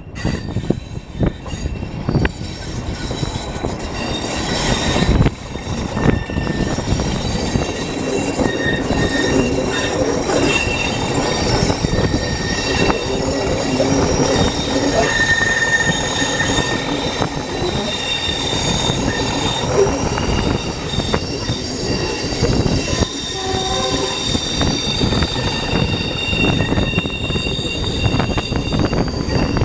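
Train wheels squealing steadily against the rails as the carriages take a long curve. Under the squeal runs the rumble of the wheels on the track and the hauling diesel locomotive.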